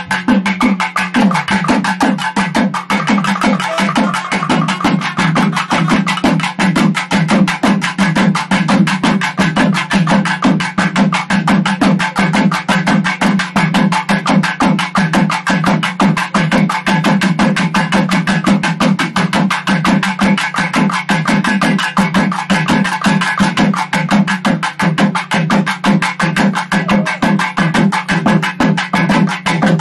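Naiyandi melam, a Tamil folk temple band, playing: rapid, even drum strokes driving under a nadaswaram melody.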